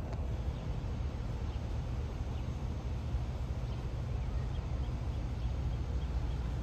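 Wind buffeting the microphone in a steady low rumble, with faint bird chirps scattered throughout.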